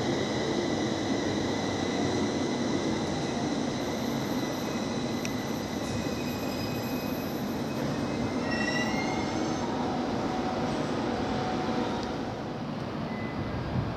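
A JR East 701 series electric train pulling slowly into a platform, its steady running noise carrying thin high squealing tones from the wheels or brakes. Short rising tones come about nine seconds in.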